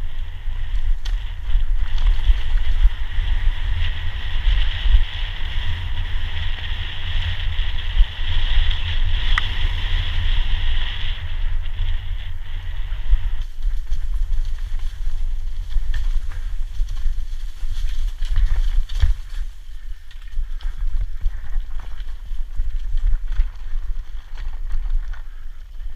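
Wind buffeting the microphone of an action camera on a mountain bike riding fast downhill: a constant low rumble, broken by rattles and clicks from the bike bouncing over a rocky dirt trail. A steady high hiss sits over it for roughly the first half, then drops away about 13 seconds in.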